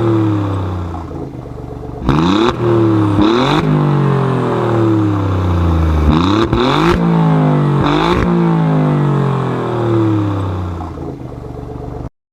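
Alfa Romeo GT's engine being revved four times in quick blips. Each time the engine note jumps up sharply, then falls slowly back toward idle. The sound cuts off abruptly near the end.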